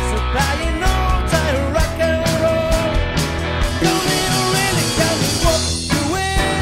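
Rock song played by a band, a singing voice holding long, bending notes over steady drums.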